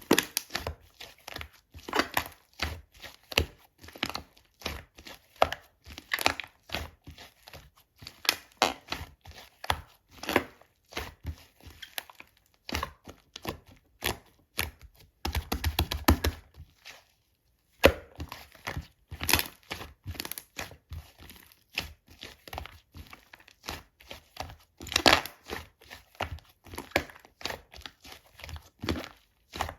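Slime being squeezed, folded and pressed by hand: a run of irregular sticky clicks, pops and crackles, breaking off for about a second near the middle.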